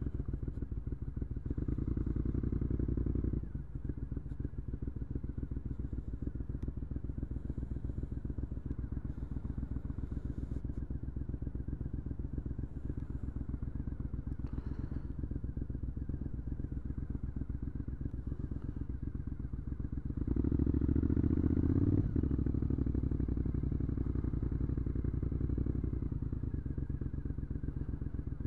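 Triumph Scrambler 900's parallel-twin engine running through an Arrow aftermarket exhaust at low town speed. The level drops about three and a half seconds in as the throttle closes, and the engine pulls louder for a couple of seconds about two-thirds of the way through before settling back to a steady cruise.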